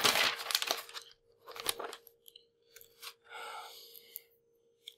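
Sheets of paper rustling and crinkling as they are leafed through, in two bursts in the first two seconds, with a softer rustle about three seconds in.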